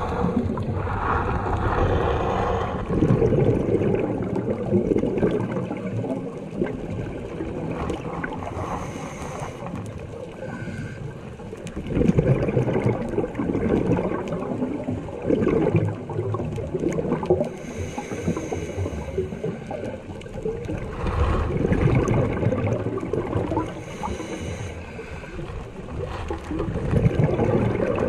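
Muffled underwater sound picked up by the camera: a steady low rumble of water movement with a louder gurgling burst of bubbles every few seconds, like a scuba diver's exhaled breath.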